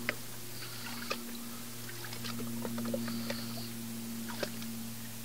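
Water sloshing and splashing as a plastic gold pan is dipped and tilted in a tub of water, washing the lighter sand out over its rim down to the black sands, with scattered small splashes and clicks over a steady low hum.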